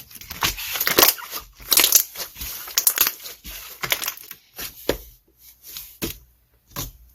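Irregular crunching and crackling, many short noisy bursts close together that grow sparser toward the end.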